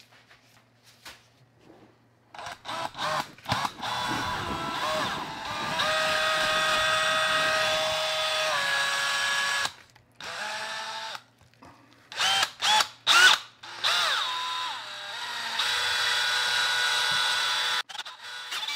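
Power drill driving a paddle mixer through concrete underlayment in a plastic mixing cup. Several short trigger pulls, the motor whine rising as it spins up, then runs of a few seconds at speed, stopping and starting again.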